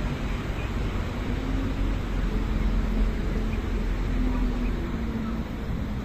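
A steady low rumble, with a faint low hum that swells and fades a few times.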